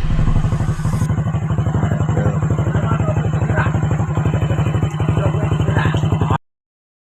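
Small engine idling steadily with a fast, even pulse, heard just after its timing chain was replaced. The sound cuts off suddenly about six seconds in.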